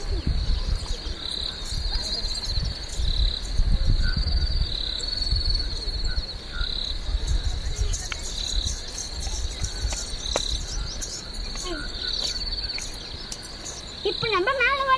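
Insects chirping in a steady high trill that swells in pulses about every two seconds, over a low rumble that is strongest in the first half. A short voice sounds near the end.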